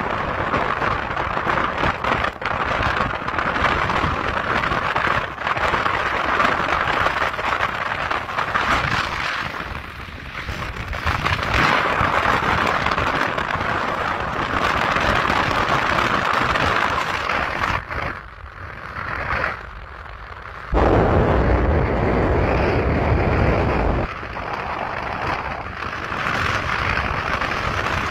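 Rushing wind and road noise from a moving car, the wind buffeting the microphone; a heavy, deep buffeting rumble takes over for about three seconds a little past two-thirds of the way through.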